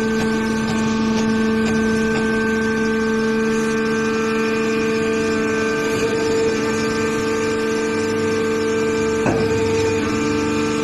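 Hydraulic baler's power unit running with a steady hum.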